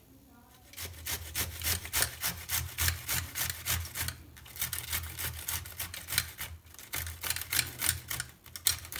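Cauliflower florets rubbed hard against the coarse side of a stainless steel box grater: a quick run of rasping strokes, about four a second, starting about a second in, with a brief pause around the middle.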